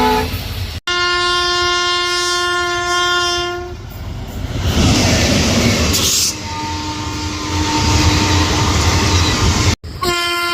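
Indian Railways locomotive air horns: a horn dying away with falling pitch is cut off abruptly, then a steady chord-like horn blast sounds for about three seconds. The rumble and clatter of the passing train follows, then a second, fainter horn blast of about three seconds before another abrupt cut.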